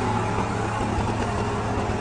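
Combine harvester running steadily while harvesting wheat, an even engine and machinery noise with no change in pitch.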